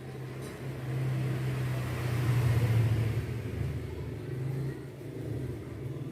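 Low engine rumble of a passing motor vehicle, growing louder about two seconds in and then easing off.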